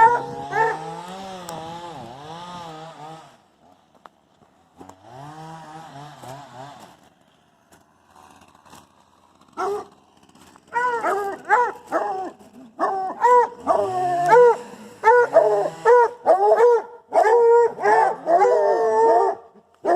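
Dogs howling and yipping in excited greeting. There is a long wavering howl at the start and a shorter one about five seconds in, then quick arching yips and whines in rapid succession through the second half.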